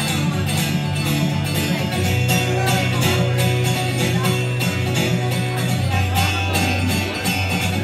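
Acoustic guitar strummed in a steady country rhythm, about four strokes a second, during an instrumental break with no singing. The chord changes about two seconds in and again about six seconds in.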